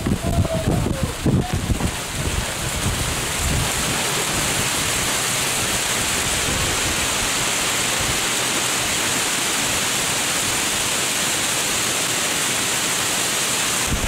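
Torrential wind-driven rain pouring down in a steady, even hiss. Gusts of wind buffet the microphone with low rumbling for the first couple of seconds, then the rain alone goes on unchanged.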